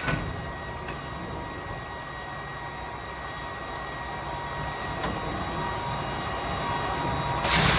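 Simec MEC 120 CNC tube saw running with a steady machine hum and faint whine. Near the end a louder hissing rush comes in suddenly.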